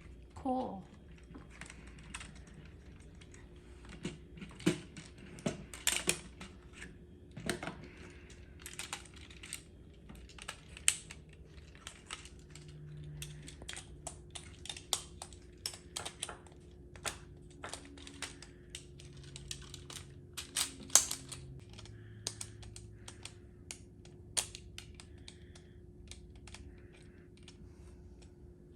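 Irregular light clicks and taps of a small screwdriver working screws out of a plastic take-apart toy truck, with the plastic parts knocking together now and then.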